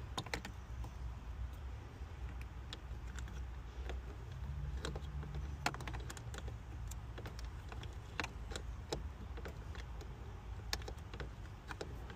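Irregular light clicks and ticks of a small 7/32 hand wrench being worked, a little at a time, on a screw threaded into the plastic housing of a blend door motor. A steady low rumble runs underneath.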